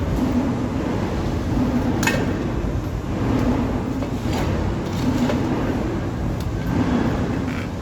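Carbide-tipped circular saw running on a metal-cutting machine: a steady, loud mechanical din with a low hum that swells and fades about once a second, and now and then a sharp metallic click.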